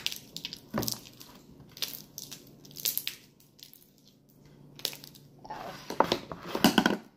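Wet, sticky homemade slime being squeezed, kneaded and pulled off the hands, making irregular squelching smacks and sticky pops, with a denser, louder run of them near the end.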